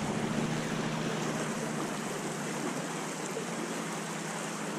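Steady rushing of flowing creek water, an even hiss with no breaks.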